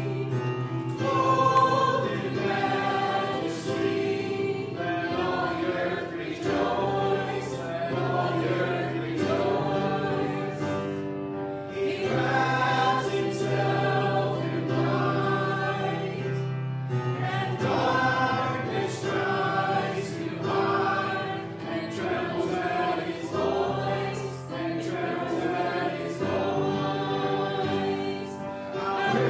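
Congregational worship song: a group of voices singing together over accompaniment that holds long low notes.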